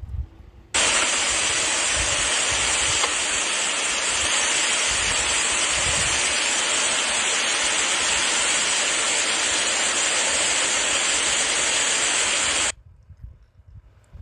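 Heavy tropical-storm rain pouring down as a steady, loud rushing hiss, which starts abruptly about a second in and cuts off abruptly near the end. Low irregular thumps sit underneath.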